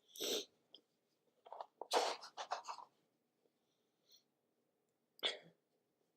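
A person sneezing about two seconds in, the loudest sound, from a sniffly, tickly nose. Shorter sharp breaths come at the start and about five seconds in.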